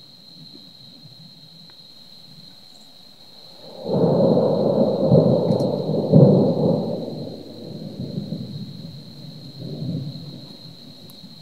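Thunder from a lightning strike: a rolling rumble that starts suddenly about four seconds in, stays loud for a few seconds, then dies away in smaller swells.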